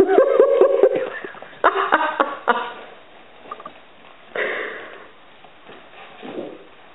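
A ferret knocking a small toy ball about on a hardwood floor: a quick cluster of clicks and knocks about two seconds in, and a short scuffling burst a little past the middle.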